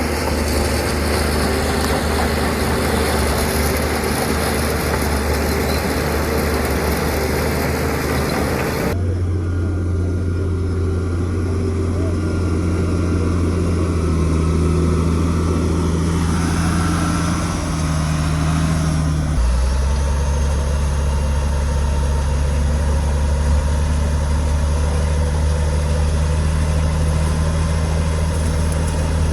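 Heavy diesel construction machinery engines running steadily with a low hum. The sound changes abruptly about nine seconds in and again near twenty seconds; the first stretch is noisier and fuller.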